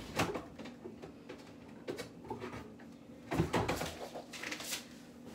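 A drawer being opened and shut, with scattered knocks and clatter of things being moved about as a makeup palette is fetched from it; the loudest knocks come a little past the middle.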